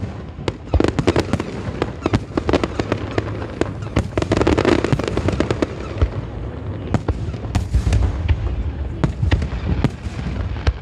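Aerial fireworks display: a dense, uneven barrage of shell bursts and crackling, several bangs a second.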